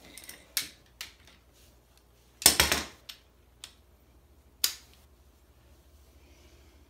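Hand tools clicking and clattering against metal: a few separate sharp clicks, then a louder short clatter of several clicks about two and a half seconds in, and two more clicks after it.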